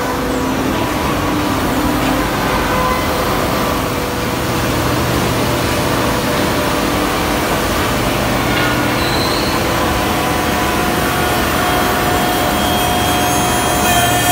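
Woodmaster four-axis CNC copy-shaping spindle moulder running, its cutter and sanding spindles machining a curved wooden workpiece: a steady machine noise of cutting and rubbing with a few steady tones through it.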